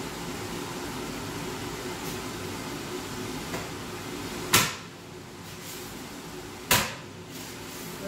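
T1 downdraft dust-collector fan built into a manicure desk, running at full speed with a steady airy whoosh and a low hum. About four and a half seconds in, a card slaps down onto the intake grille. The whoosh then drops and dulls as the suction holds the card over the vent. A second sharp slap follows about two seconds later.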